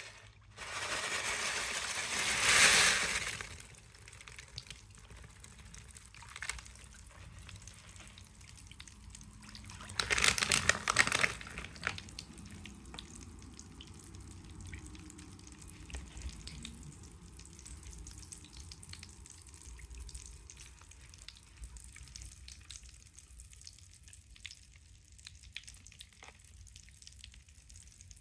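Water in a footbath with dissolving magnesium salt: two loud splashes or pours, one about a second in lasting a few seconds and a shorter one about ten seconds in, with a faint fizzing crackle of small pops in between and afterwards.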